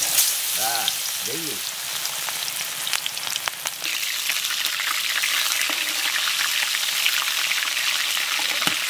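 Batter-coated chicken intestine deep-frying in hot oil in an aluminium wok: a loud, steady sizzle that breaks out suddenly as the piece goes into the oil.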